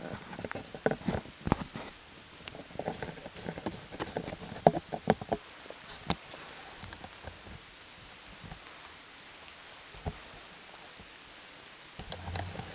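Rain pattering, with drops tapping close by in many irregular clicks over the first half, then easing to a quieter steady hiss with only a few drops.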